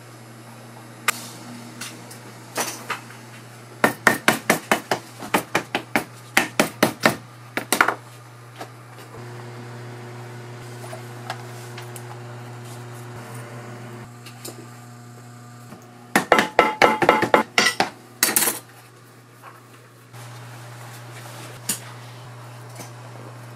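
Shoemaker's hammer tapping leather on a stone slab in two runs of sharp strikes, about three a second at first and a quicker run later, over a steady low hum.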